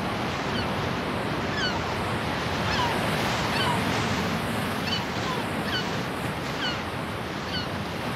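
Surf breaking on a beach: a steady wash of waves, with many short, high bird calls scattered through it.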